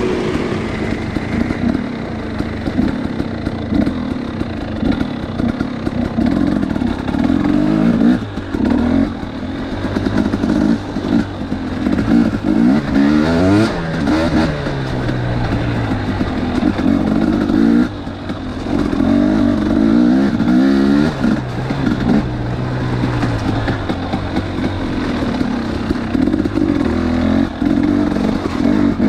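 250cc two-stroke dirt bike engine running on a trail, the throttle opened and closed over and over so the pitch repeatedly rises and falls, with some clatter.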